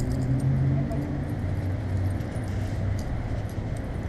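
Light metallic jingling in scattered small clicks, over a steady low hum.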